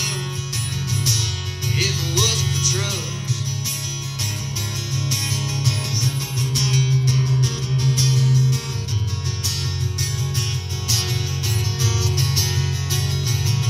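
Acoustic guitar strummed in a steady rhythm, an instrumental passage of a country song.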